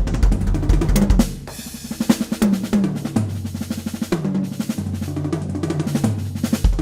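Drum kit played through Roland TD-27 triggering: bass drum and snare hits with several tom fills, the tom pitches falling hit by hit. There is a lighter passage about a second and a half in.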